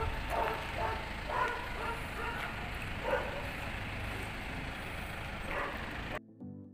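Outdoor ambience: a steady low rumbling noise with faint voices of people talking at a distance. About six seconds in it cuts abruptly to background music.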